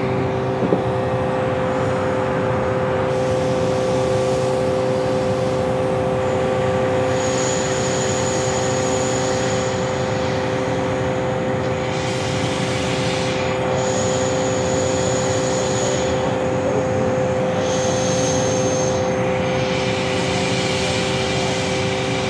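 Steady industrial plant noise: a mechanical drone with a constant low two-tone hum. A thin high-pitched whistle from air compressors comes and goes several times, along with a hiss that swells and fades.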